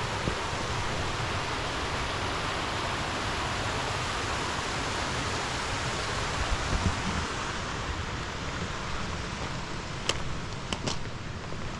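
Steady rush of flowing water, thinning out over the last few seconds, with a few footsteps near the end.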